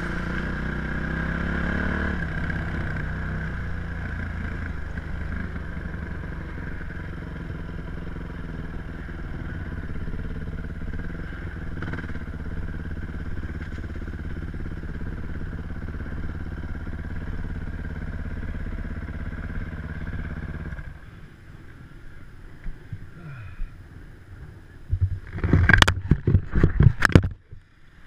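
Dirt bike engine running at a low, steady speed as the bike is ridden slowly, then cutting out about three quarters of the way through. A few sharp knocks and rubs close to the microphone follow near the end.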